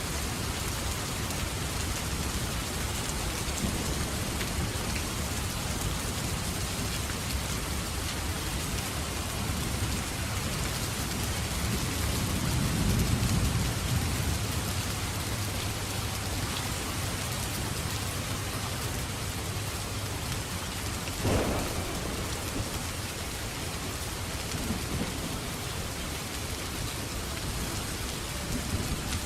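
Steady heavy rain falling, with a low rumble of thunder swelling about halfway through and a single sharp crack a little later.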